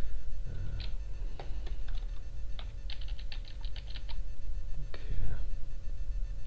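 Typing on a computer keyboard: a quick run of about nine keystrokes in the middle, with a few single clicks before and after it. A steady hum runs underneath.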